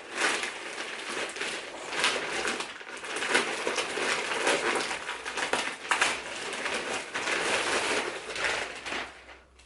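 Rustling and crinkling of plastic packaging and clothing being handled and pulled from a parcel, with many small irregular crackles.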